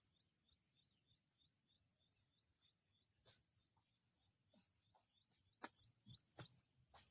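Very quiet: a small bird twittering in a quick run of faint high chirps during the first few seconds, over a steady faint high-pitched whine. In the second half come a few sharp knocks or taps, the loudest near the end.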